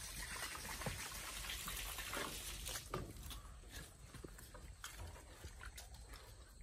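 Young wild boars grunting in short bursts as they forage. Water runs faintly underneath and fades out about three seconds in.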